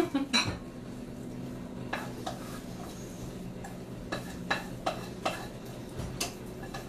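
A cooking utensil knocking and scraping against a pan as cooked chard is moved into a serving dish: scattered clinks every second or so over a steady low hum.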